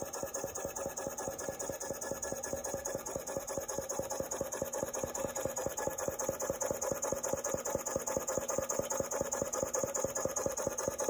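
Model Corliss steam engine running steadily, its valve gear and crank beating fast and evenly over a constant hiss.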